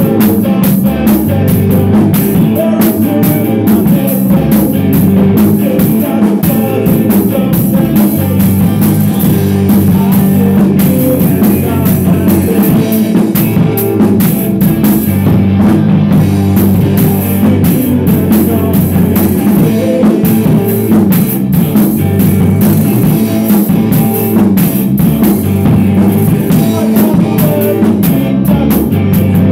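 Rock band playing live in a rehearsal room: drum kit and electric guitar, loud and unbroken.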